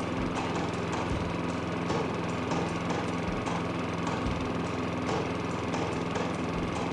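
Toro Recycler 22-inch walk-behind lawn mower's small engine running steadily under cutting load, at an even pitch and level.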